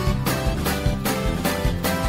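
Instrumental theme music with a steady driving beat, about two and a half beats a second, over sustained pitched notes: the closing theme of a TV news bulletin.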